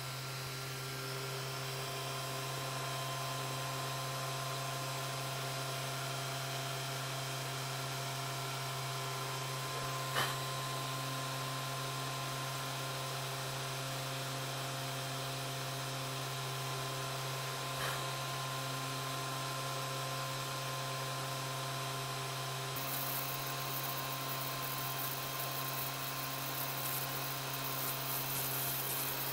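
A 500-watt ER11-collet spindle on a home-made drill press running steadily, a constant hum with a higher whine, while a tiny 0.25 mm bit is fed into copper-clad circuit board. Two light clicks come partway through. A hiss joins the whine about two-thirds of the way in, as the bit cuts into the board.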